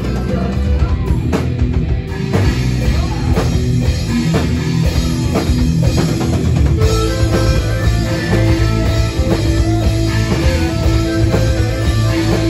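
Live rock band playing loudly on drum kit, bass guitar and electric guitar.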